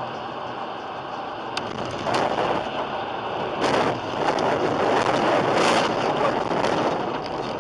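Rushing road noise of a car in motion, which grows louder from about two seconds in and swells a few times.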